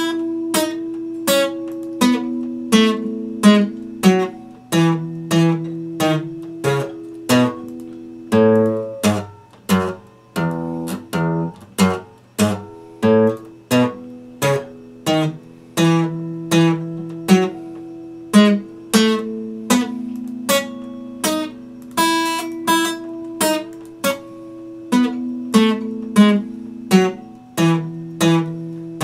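Solo acoustic guitar played with a pick: chords and single notes struck in a steady rhythm of about two strokes a second, each ringing on into the next, with a quicker run of notes about a third of the way through.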